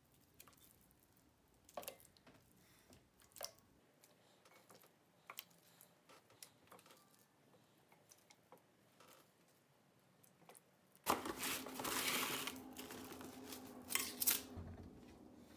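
Faint wet taps and clicks of raw pork riblets being laid one by one into a bowl of marinade, then, about eleven seconds in, a louder crinkling of plastic cling wrap being pulled out and stretched over the bowl.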